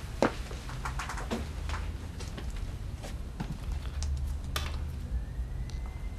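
Soft footsteps and small clicks and taps as a person walks to a fridge and takes a photo off its door, over a low steady hum.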